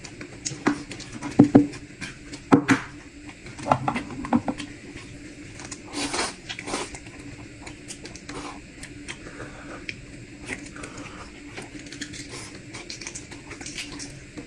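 Close-miked eating sounds: bites and chewing with scattered sharp clicks and knocks, loudest in the first few seconds.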